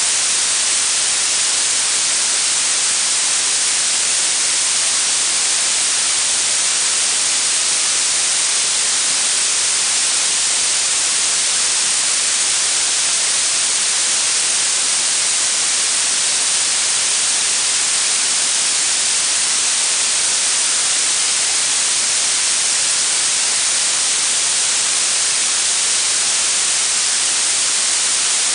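Synthetic blue noise: a steady, even hiss weighted toward the high frequencies, with little low end, unchanging throughout.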